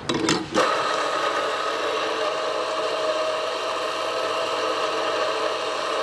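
Anfim SP2 Plus commercial coffee grinder grinding espresso beans through its 75 mm titanium-coated flat burrs. It starts about half a second in, set off automatically by the metal proximity sensor when the portafilter is locked into the holder, and runs steadily.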